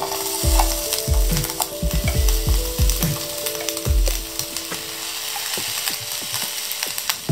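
Sliced cabbage, green onion and carrot tipped into hot oil in a non-stick frying pan, sizzling with crackles and light clicks as the pieces land.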